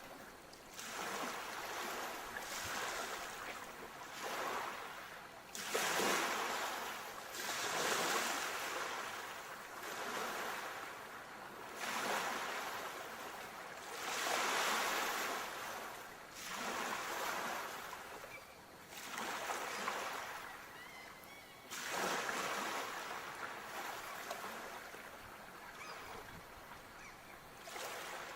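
Sea waves washing in on a shore, each wave swelling to a rushing surge and then ebbing away, one every few seconds. Stronger waves break about six, twelve and twenty-two seconds in.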